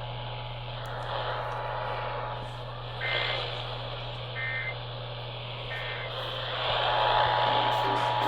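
Emergency Alert System end-of-message data bursts received over the air: three short two-tone digital squawks about a second and a half apart, marking the end of the monthly test. Under them is radio static with a steady hum and a thin whistle, and the static grows louder near the end.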